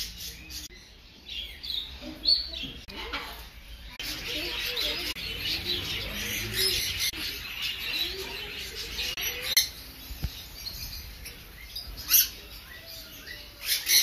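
Many small caged birds chirping and chattering together, busiest in the middle of the stretch, with a couple of sharp taps in the second half.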